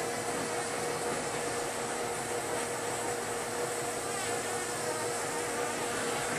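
Steady hiss of a glassworking hand torch flame, with a steady hum underneath.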